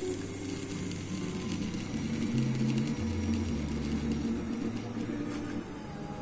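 Jeep Cherokee in-tank electric fuel pump running on an outside power supply, whirring steadily. Its hum shifts in pitch in steps as the fuel return line is pinched off and released, part of a fuel-pressure test.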